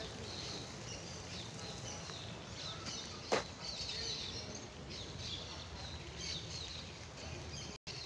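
Many small birds chirping in short, quick calls over a steady low background noise. A single sharp knock sounds a little over three seconds in, and the sound drops out for an instant near the end.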